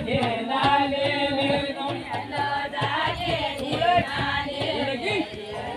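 Group of villagers singing a Kumaoni jhoda-chachari folk song together, many voices in chorus.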